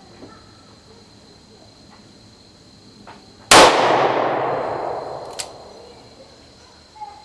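A single .44 Special shot from a Taurus M445 revolver about three and a half seconds in, followed by a long echoing decay.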